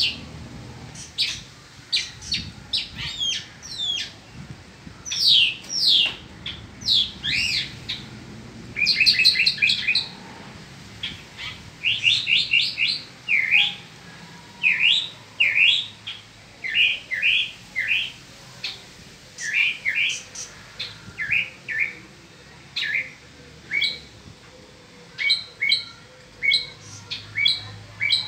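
Caged mockingbird singing a long, varied song of short whistled and chirped phrases, many of them repeated several times in quick succession before switching to a new phrase.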